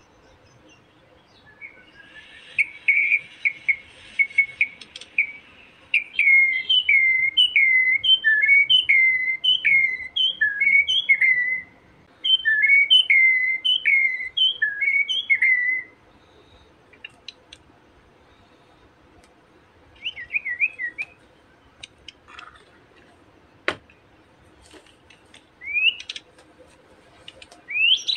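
Young wild white-rumped shama (murai batu) giving taunting calls: rapid runs of short whistled notes that dip and rise in pitch, in two long runs through the first half, then only a few short bursts and rising whistles. A single sharp click partway through the second half.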